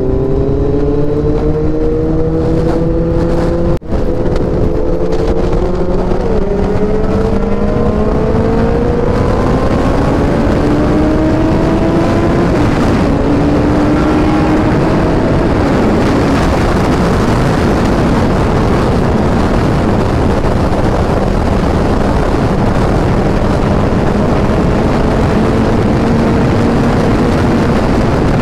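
2021 Suzuki Hayabusa's 1340 cc inline-four with a Racefit exhaust, heard from the rider's seat, accelerating hard with its pitch rising steadily. There is a short cut about four seconds in as it shifts up. It then pulls on to a steady high-speed cruise, with wind rush growing over the engine.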